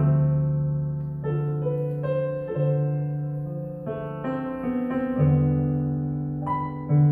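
Yamaha MOXF8 synthesizer keyboard playing in a piano voice: slow sustained chords, a new one struck about every second and a quarter, each ringing and fading into the next.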